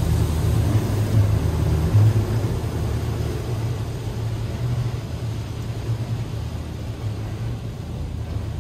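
Tunnel car wash running around a car: a steady low rumble with a rushing hiss over it, slowly growing quieter.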